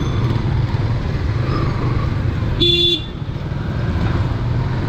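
Motorcycle engine running steadily under way with road noise, and one short horn toot about two and a half seconds in.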